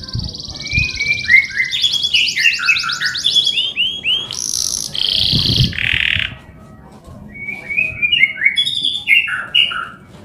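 Male domestic canary singing loudly: a fast rolling trill that runs into a string of downward-sliding whistled notes and a harsh buzzy phrase, then a brief pause about six seconds in before more sliding notes.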